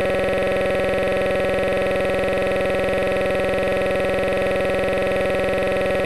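A steady electronic buzzing tone at one unchanging pitch and level, cutting in abruptly and covering everything else.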